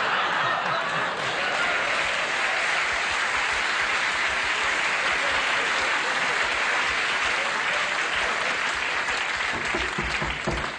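Studio audience applauding, a steady, loud mass of clapping that dies away near the end.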